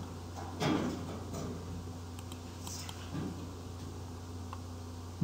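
Steady low electrical hum from the recording setup, with a few faint clicks and a short soft knock about a second in, fitting a computer mouse being clicked.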